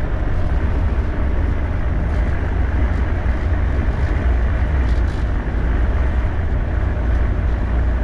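Steady engine drone and road noise heard from inside a motorhome cab at highway speed, with a deep low rumble under it.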